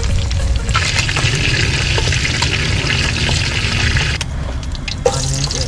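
Cornstarch-coated Dungeness crab pieces frying in hot oil in a wok: a steady sizzle that drops away briefly about four seconds in and then returns, over a low rumble.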